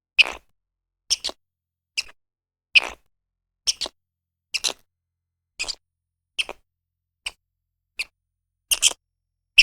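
A regular series of short, sharp clicks or taps, often in pairs, coming a little faster than once a second with silence between.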